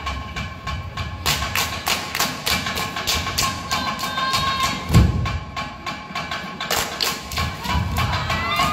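Fast, even percussion beat for a Samoan group dance, about four sharp knocks a second, with one heavy thump about five seconds in.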